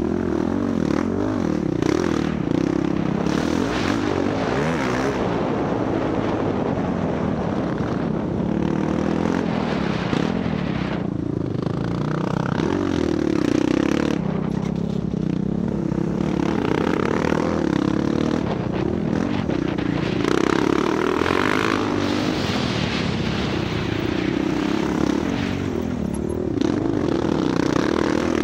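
Off-road dirt bike engine running under load on a trail ride, its pitch rising and falling over and over as the throttle is worked, with scraping noise over it.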